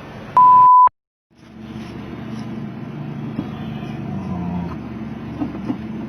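A loud, steady, pure beep tone lasting about half a second, cut off abruptly into a moment of dead silence, like a bleep edited into the soundtrack. After it, a steady low hum with a few faint clicks.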